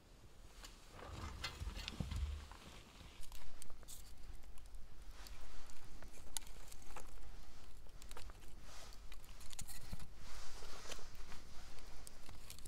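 Small wood fire of split pine crackling, with irregular sharp pops and clicks. A stick is laid onto it near the end, and there is a low rumble of handling about a second in.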